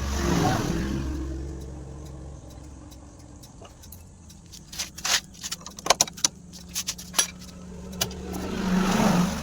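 Hero Splendor motorcycle's single-cylinder engine running, revved briefly at the start and again near the end, with a run of sharp metallic clinks and rattles in between.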